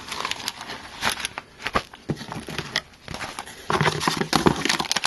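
Plastic bags of oscilloscope probes and accessories crinkling and rustling as they are handled, in irregular short crackles, louder and denser for about a second near the end.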